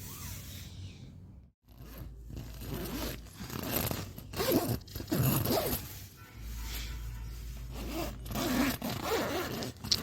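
Tent zipper being pulled in several short, uneven strokes.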